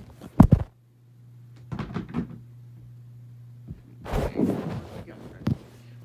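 A camera being handled close to its own microphone: a few sharp knocks and thumps, then a stretch of rubbing and rustling and one more knock near the end, over a steady low hum.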